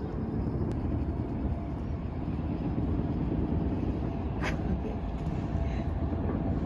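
Steady low rumble of distant city traffic, with a brief sharp click about four and a half seconds in.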